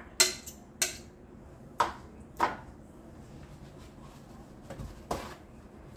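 A few separate knocks and clinks of bowls and utensils being handled on a kitchen counter, about five in all, spread out with quiet in between.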